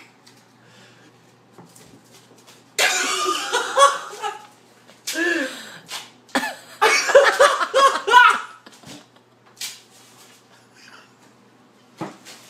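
Someone laughing hard in two bouts, the first about three seconds in and the second around seven seconds in.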